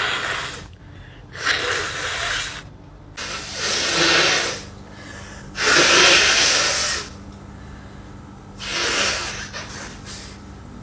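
A person sneezing in a run of about five loud sneezes, roughly one every two seconds, each a noisy burst about a second long; the one about six seconds in is the loudest.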